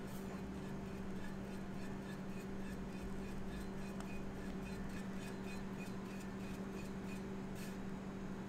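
Steady low hum with scattered light clicks and taps of food being prepared, and a short hiss near the end.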